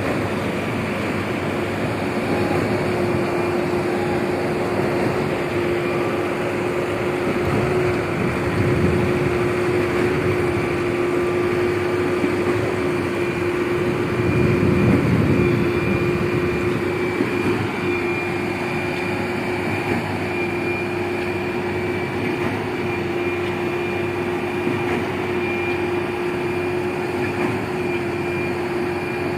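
Schwing S 36 X truck-mounted concrete pump running steadily with a constant hum, swelling louder twice.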